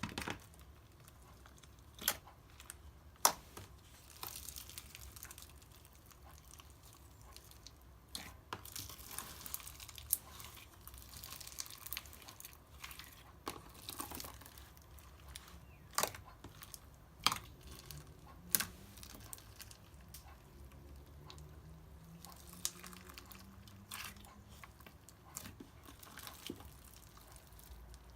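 Thick foam-bead slime being squished and stretched by hand: soft crunchy crackling with scattered sharp pops and clicks.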